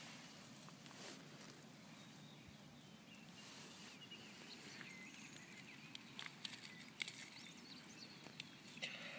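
Near silence: faint outdoor ambience, with a few soft clicks and ticks from handling about six to seven seconds in.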